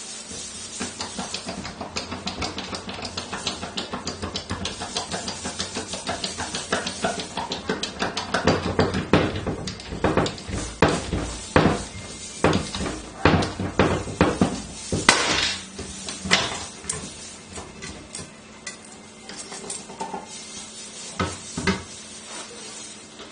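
Manual hydraulic hole punch for cable tray being pumped by hand: a fast run of metallic clicks from the pump handle, about two to three a second, becoming heavier and slower knocks as the punch works through 2 mm steel plate, with one loudest sharp crack about fifteen seconds in. A few metal clinks near the end as the steel channel is shifted on the die.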